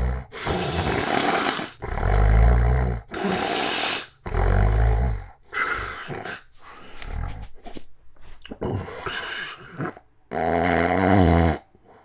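A man snoring very loudly in his sleep, which he puts down to sleep apnea. Four long, heavy snores and rushing breaths come one after another, some deep and rumbling. Around the middle they break into a run of short, choppy snorts, and near the end there is one long, loud groaning snore.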